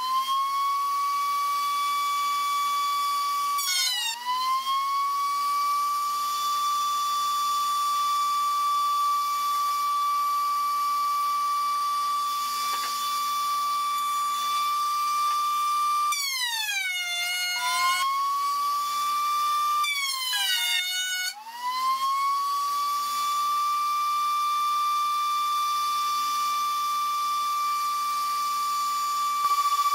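Table-mounted trimmer router with a dovetail bit running at full speed with a high steady whine. Its pitch drops and climbs back a few times, about four times in all, as the bit bites into the board end cutting the male dovetail tenons.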